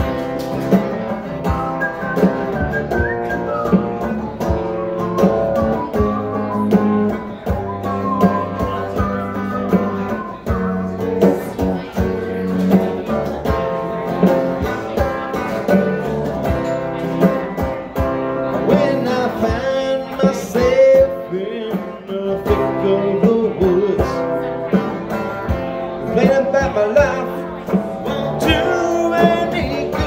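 Live electric guitar playing an instrumental break in a pop-rock song, over a steady beat.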